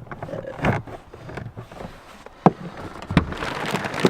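Handling noises from working cables through a car's plastic interior trim: a few sharp knocks and clicks, the loudest about two and a half seconds in, then steady rustling and scraping from about three seconds in.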